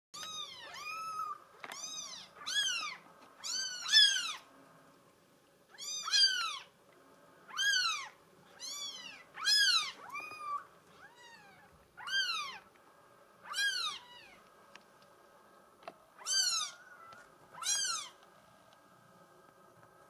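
Young Bengal kitten mewing over and over: about fifteen short, high calls that each rise and fall in pitch, often coming in pairs with short pauses between.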